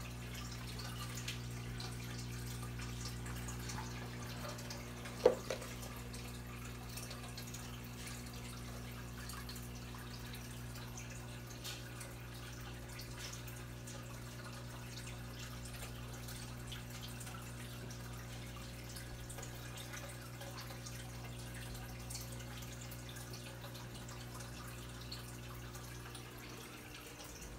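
Fish tank running: a steady low hum from the aquarium pump with faint dripping and bubbling water from the filters. One sharp click about five seconds in.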